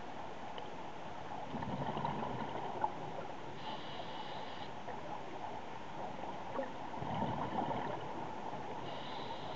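Scuba diver breathing through a regulator, heard underwater over a steady hiss: a short hissing inhale about four seconds in, and bubbling exhales about one and a half and seven seconds in.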